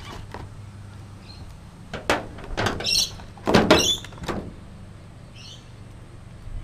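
Stiff clear plastic clamshell packaging crackling and clicking as coiled braided brake lines and a bag of fittings are pulled out of it. It comes in a few short bursts, the loudest a little past the middle.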